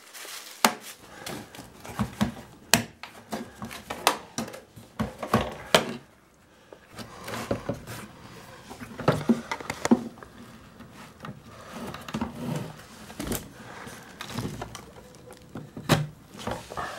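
Irregular plastic clicks and knocks with light metallic rattles as metal drill bits are handled and pulled from the plastic holder of a Bosch X50Ti drill-bit set case, with a short pause about six seconds in.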